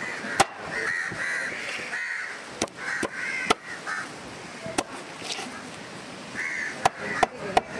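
Crows cawing over and over, broken by sharp knocks of a heavy cleaver chopping fish on a wooden block; the loudest knocks come three in quick succession near the end.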